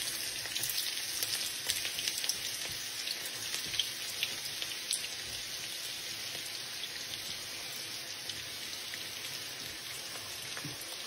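Sliced onions sizzling in hot oil in a non-stick wok: a steady hiss with small scattered crackles.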